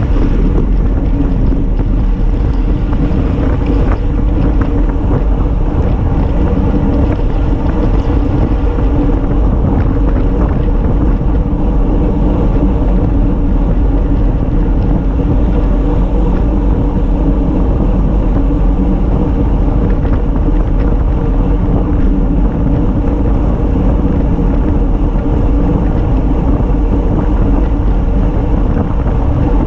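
Loud, steady wind rush on a handlebar-mounted action camera's microphone, with road noise from a road bike riding at speed on asphalt, unbroken throughout.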